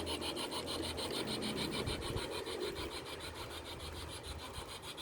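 A small railway train running along the track, giving a fast, even rasping beat about six or seven times a second over a low hum, slowly fading as it moves away.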